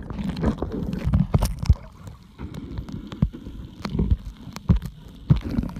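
Water sounds heard through a camera held under water: a muffled low rumble of moving water, with many irregular clicks and knocks.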